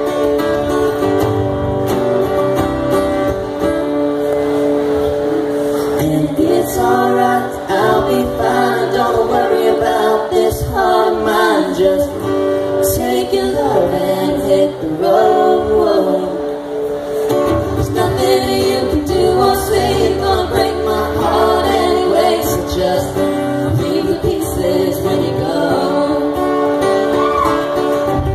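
A live duet sung to guitar accompaniment, with a woman's voice among the singers.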